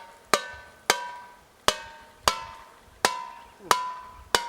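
Metal lid of a sugar-water bee feeder struck sharply seven times at a steady pace, each hit leaving a short metallic ring, as holes are punched through it for the syrup to drip out.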